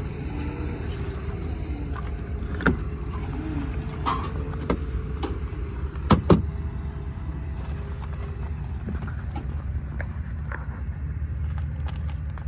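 Steady low rumble with a few sharp clicks and knocks from handling in and around a car's interior, the loudest a quick double knock about six seconds in.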